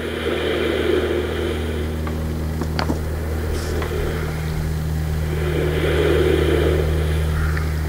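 An engine running steadily with a low, even hum, while a rushing noise swells and fades twice over it.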